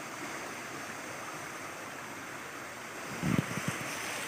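Steady rushing noise of water, with a brief low sound about three seconds in.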